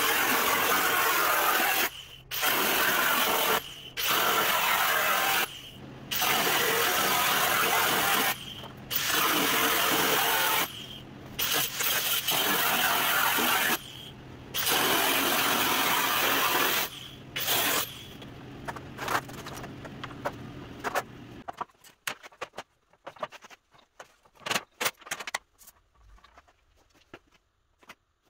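Angle grinder with a cut-off disc slicing through an old steel truck front panel, in cuts of one to three seconds with short breaks between them. About three-quarters of the way through, the grinder winds down and stops. Scattered light metal clicks and clinks follow as the panel is handled.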